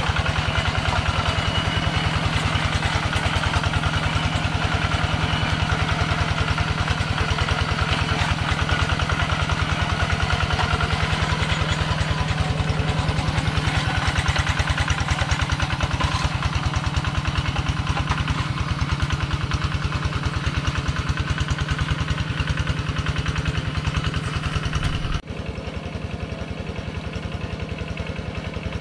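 Kubota two-wheel hand tractor's single-cylinder diesel engine chugging steadily while it plows a flooded rice paddy. Near the end the sound drops suddenly and goes quieter, as the tractor is heard from farther off.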